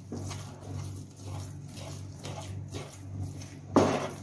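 A spatula scraping and pushing crumbled paneer and sugar around a nonstick frying pan, in short strokes about two or three a second, with a louder stroke near the end. A steady low hum runs underneath.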